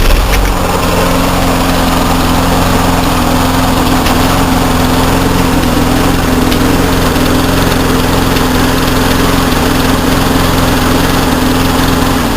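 6 hp Tecumseh single-cylinder four-stroke lawnmower engine, started cold, running steadily and staying running. This shows the cleaned carburettor has cured its habit of starting and then dying after a couple of seconds.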